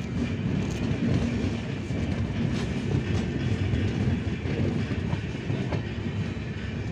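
Suhaildev Superfast Express coaches rolling along the track, a steady rumble with the clack of wheels over rail joints, heard from a coach doorway.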